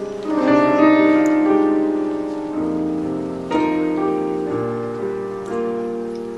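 Slow instrumental background music led by piano: chords struck every second or two, each ringing and fading.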